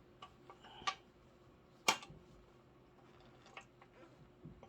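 Scattered light clicks and clinks of small parts and tools being handled while searching for a bolt, with one sharper clack about two seconds in.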